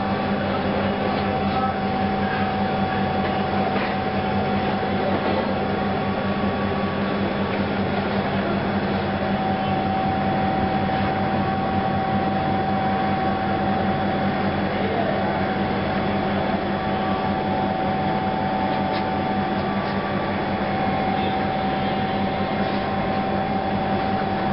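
A steady mechanical hum with a faint constant whine above it.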